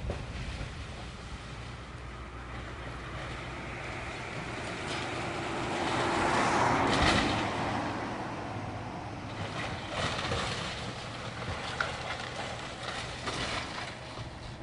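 Heavy demolition machinery running steadily with a low engine drone. A broad noisy swell builds to its loudest about seven seconds in, and a few sharp knocks follow around ten to thirteen seconds in.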